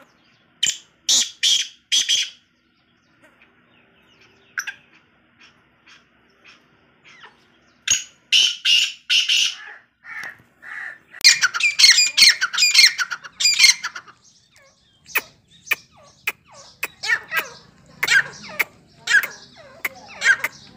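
Caged francolins (teetar) calling: loud, harsh, repeated calls in runs. There are three quick calls near the start, another run about eight seconds in, and then a long, dense stretch of overlapping calls through the second half.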